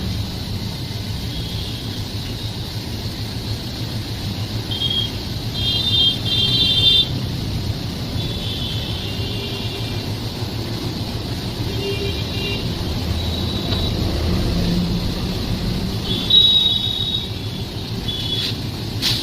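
Running train, a steady low rumble, broken by several short high-pitched squealing tones, the loudest about six seconds in and again about sixteen seconds in.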